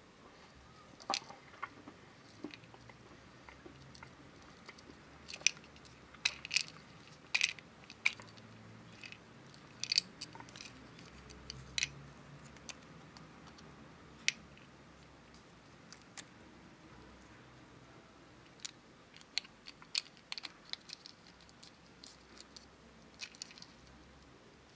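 Small hard-plastic clicks, taps and snaps from a toy candy case shaped like a Tamagotchi 4U being pulled apart, its picture insert handled, and clipped back together. The clicks come in scattered short clusters.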